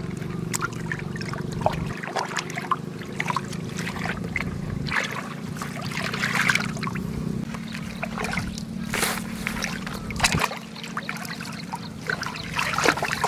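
Irregular splashing and trickling of shallow water, with a steady engine hum that shifts in pitch about halfway through.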